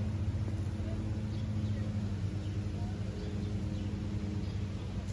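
Steady low mechanical hum, with faint short high chirps scattered through.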